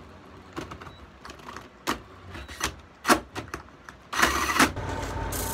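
Cordless drill with a hole saw biting into a pine pallet board in short, irregular bursts, the loudest about four seconds in. Near the end a drill press running a drum sander takes over with a steady hum and a faint whine.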